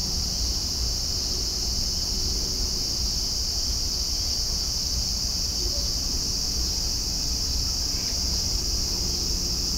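Steady chorus of insects, a continuous high-pitched chirring, over a constant low background rumble.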